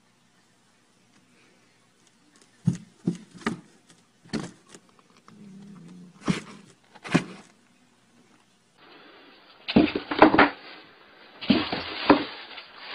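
Cardboard boxes with cats inside being knocked and scrabbled at: scattered sharp thumps in the first half, then two louder, denser bouts of banging and scratching near the end.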